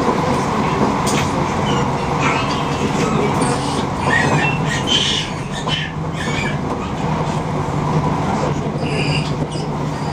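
Passenger train running along the line, heard from inside the carriage: a steady rumble of the wheels on the rails and the coach, with a few brief higher squeaks or rattles.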